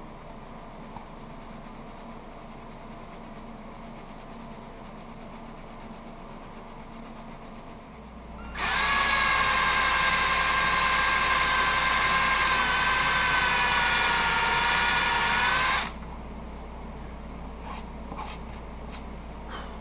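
Cordless drill running for about seven seconds, boring a hole through the leather paddle of a holster. Its pitch sags slightly under load before it stops. A few light clicks follow near the end.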